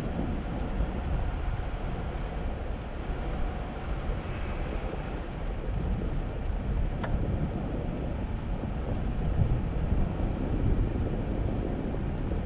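Jeep Gladiator pickup driving off-road: a steady low rumble of engine and running gear, with a single sharp click about seven seconds in.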